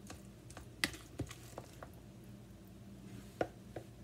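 Metal fork mashing and stirring avocado in a plastic container: irregular light clicks and taps of the fork against the plastic, about eight in four seconds.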